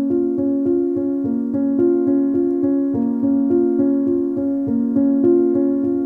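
Gentle piano music: soft notes in a steady flowing pattern, about three a second, over held lower notes.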